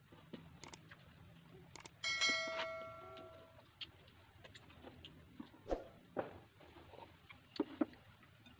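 Eating by hand from a platter: small clicks and taps of fingers picking food off the dish. About two seconds in, the dish is struck and rings with a clear tone that dies away over about a second and a half.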